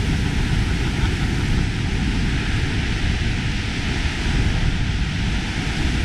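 Steady roar of a large waterfall: an even, deep rushing noise that holds without a break.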